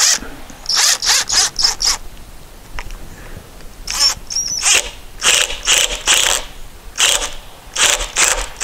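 Cordless drill driving a screw into a wooden spacer block, run in repeated short bursts of the trigger, the longest about a second.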